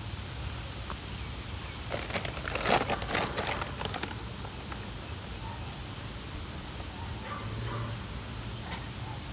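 Potting soil being scooped and handled in a grow pot, a burst of gritty rustling and scraping about two to four seconds in, over a steady low background hum.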